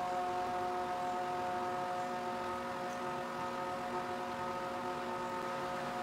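Small electric motor of a homemade cable retractor running steadily as it turns a spool winding up a cord, giving an even whine of several pitches.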